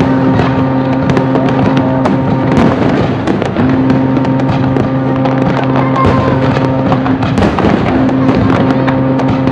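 Aerial fireworks shells bursting in quick, irregular succession, with sharp reports and crackling. A steady held tone runs underneath, breaks off twice and resumes.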